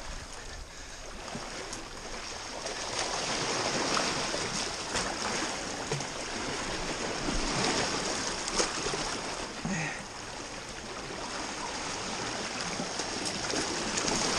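Sea surf washing against a rocky shore, swelling and easing in slow surges, with now and then a short click.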